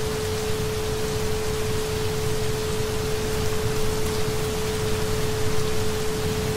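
A recording of steady rain, an even hiss, with a steady 432 Hz isochronic tone held underneath it.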